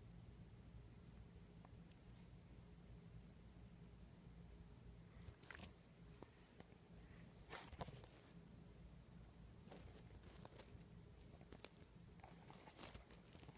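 Faint, steady high-pitched trilling of crickets. A few soft clicks and rustles come through, the loudest about eight seconds in and again near the end.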